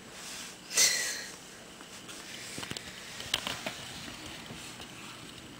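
Handling noise around a plastic snake tub: a short, sharp rustle or scrape about a second in, then a few faint clicks and taps.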